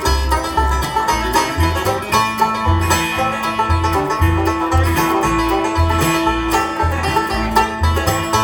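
Bluegrass band playing an instrumental passage: banjo, guitar and bass, with some long held notes from another string instrument over the picking and steady low bass notes.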